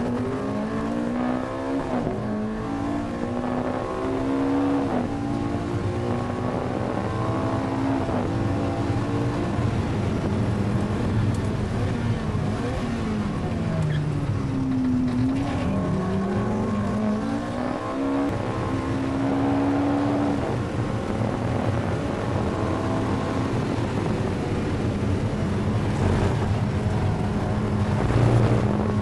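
Sports car engine at hard throttle heard from inside the cabin on a racetrack, its pitch climbing through gear after gear in quick upshifts, then dropping as it slows for a corner about midway before climbing again.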